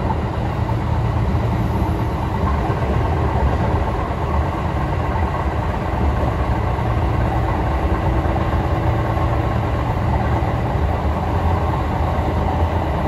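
Kintetsu electric express train running at speed, heard inside the passenger car: a steady rumble of wheels on the rails and the car body.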